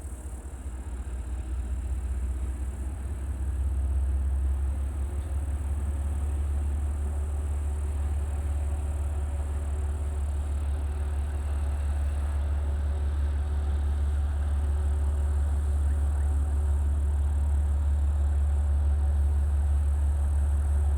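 2TE116UD diesel-electric freight locomotive running with a deep, steady rumble, which swells over the first few seconds and then holds.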